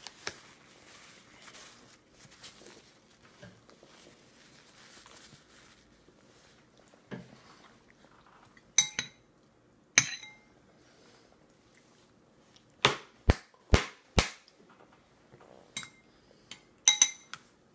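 A baby's plastic spoon clinking against a soup bowl and knocking on a high-chair tray: two ringing clinks about halfway through, then four quick knocks in a row, then a few more clinks near the end.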